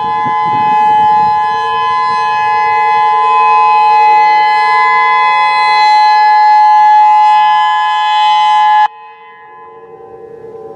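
Federal Signal EOWS 612 electronic outdoor warning siren sounding its steady alert tone, cutting off abruptly about nine seconds in at the end of its two-minute alert cycle. Other tornado sirens carry on faintly in the distance after it stops.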